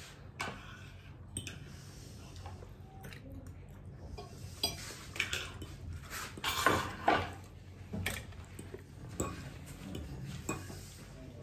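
Metal fork scraping and clinking against a ceramic plate while gathering sauced pasta, a run of scattered short scrapes and clinks, loudest about seven seconds in.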